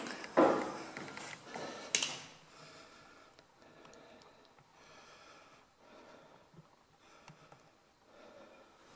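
A few loud bumps and rustles of someone moving about, the sharpest a knock about two seconds in, then quiet room tone.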